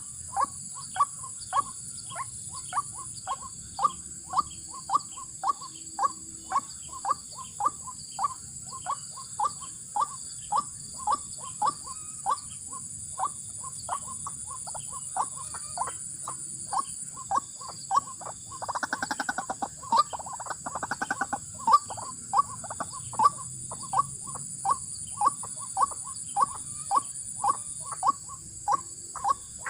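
White-breasted waterhen (ruak-ruak) calling, a short call repeated about twice a second without a break. About 19 s in, the calls break into a fast, buzzy rattle for a couple of seconds. A steady high hiss runs underneath.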